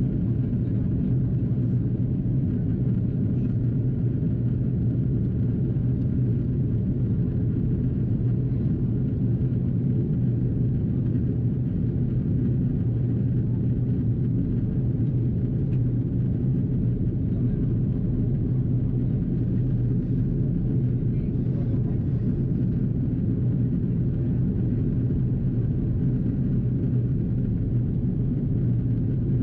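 Steady low cabin rumble of an Airbus A330-300 in descent, heard from a window seat: engine and airflow noise at an even level.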